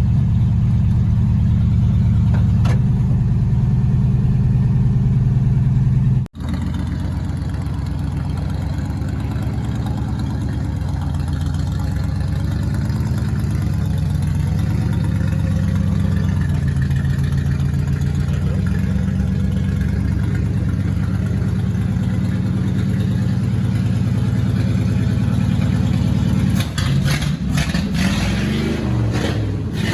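1954 Ford Customline's engine running as the car drives along, a steady low drone that rises and falls a little with the throttle. It cuts out abruptly for a moment about six seconds in. A few knocks and rattles come near the end.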